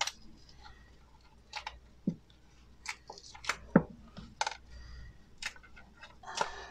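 Bath oil coins being popped out of a flexible mold and set down on a towel: a scattering of short clicks and taps, with a few dull knocks.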